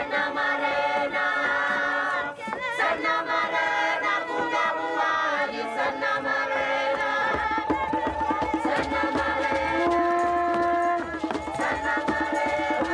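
A choir singing with long held notes, joined about halfway through by a steady drum beat.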